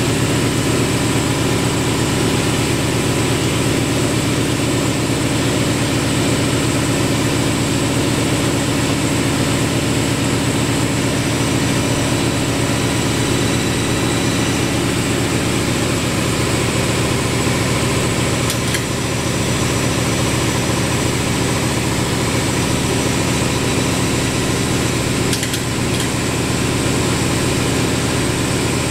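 Steady mechanical drone of the vacuum lifter's pump running while it holds the granite slab on its suction pads, with a couple of faint clicks about two-thirds in and near the end.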